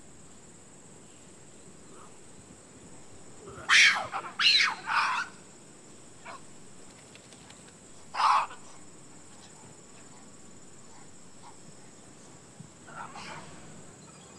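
Gelada baboons calling: a quick cluster of loud, sharp calls about four seconds in, a single call near eight seconds, and fainter calls near the end.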